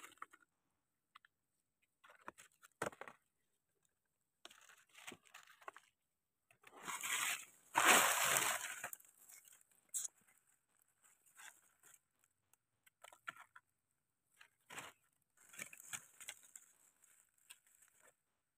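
Dry leaf litter crackling and rustling in irregular bursts as hands brush it aside and dig mushrooms out of the forest floor, loudest about seven to nine seconds in.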